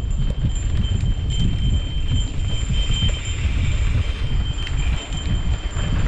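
Mountain bike riding over a dirt singletrack: an uneven rumble of wind on the microphone and the bike rattling over the trail, with a thin, high metallic ringing buzz that comes and goes.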